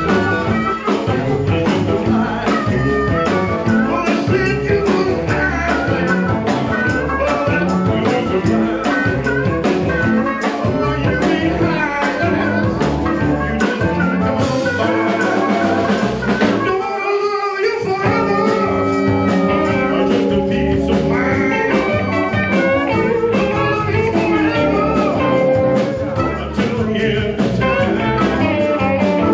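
Live blues band playing with electric guitars, keyboard and drum kit, and a singer. About seventeen seconds in, the bass and drums drop out for about a second before the band comes back in.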